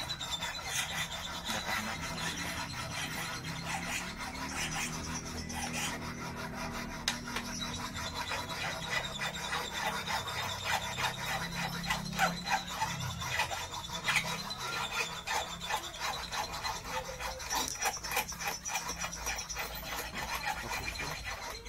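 Steel wire scraping and rubbing against a small bolted steel-plate jig as it is bent into an eel hook with pliers, in dense small scrapes and clicks. A faint high whine runs underneath.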